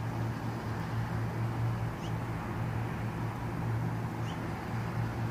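Outdoor ambience under a storm sky: a steady low hum under a wash of noise. A faint, short, high chirp comes about every two seconds, likely a bird calling.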